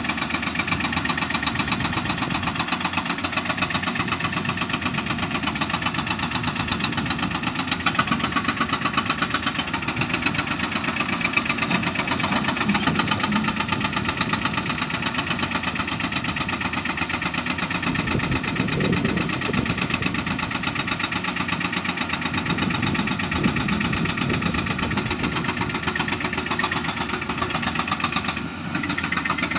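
Diesel engines of two Caterpillar tracked excavators running steadily under working load while they dig and swing rock, with a brief dip in level near the end.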